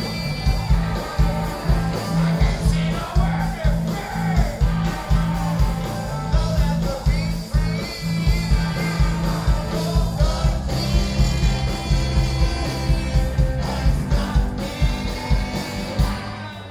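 Rock band playing live, with electric guitars, drums and a singer, heard from the crowd. The music thins out just before the end.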